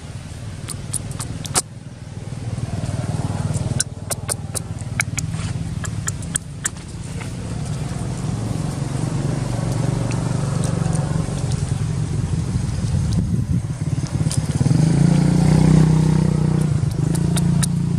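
A motor vehicle's engine running nearby, a steady low hum that grows louder toward the end. Scattered sharp clicks and crackles sound over it in the first several seconds.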